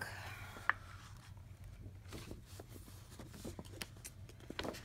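Soft paper rustles and light taps as a large paper rulebook is handled and its pages are turned, with one sharper tap under a second in.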